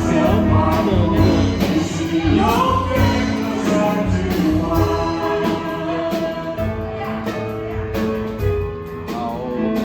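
Worship song performed by singers with a band, sung melody over a steady drum beat.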